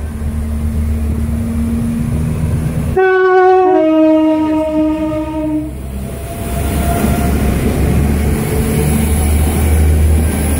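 A Northern Ireland Railways diesel multiple unit sounds its two-tone horn about three seconds in: a short high note, then a lower note held for about two seconds. The train's engine and wheel noise rumbles loudly before and after as it passes close by.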